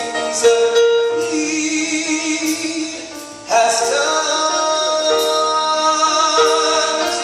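A man singing solo into a handheld microphone, holding long sustained notes that waver in pitch; the singing breaks off briefly about three seconds in, then resumes.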